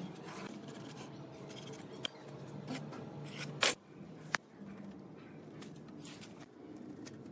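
Scraping and rubbing of hand work on wood, with a few sharp knocks; the loudest comes about three and a half seconds in, followed shortly by a sharp click.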